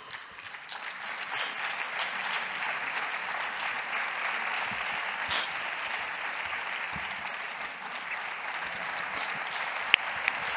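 Audience applauding steadily, a dense crackle of many hands clapping, with one sharp, louder clap near the end.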